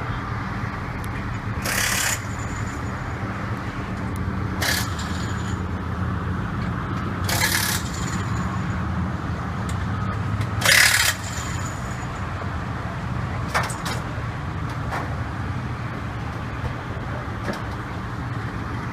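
A large engine running steadily at idle, with five or six short hisses breaking in over it, the loudest about eleven seconds in.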